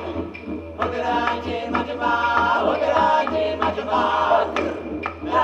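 Male voices singing together in chant-like harmony, holding and shifting notes over a steady low didgeridoo drone.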